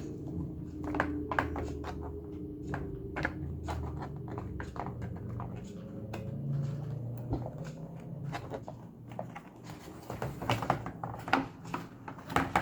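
A run of sharp clicks and pops, thickest near the end, over a low steady hum: joints cracking during a back-cracking manipulation.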